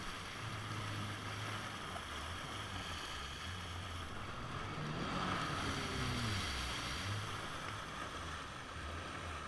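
A Kawasaki jet ski engine running, with water rushing and splashing around the hull and wind on the microphone. About five seconds in, the engine note drops as the craft slows.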